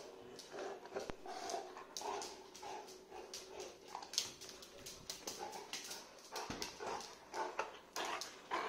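Golden retriever whining in short, repeated bursts with a red rubber toy held in its mouth.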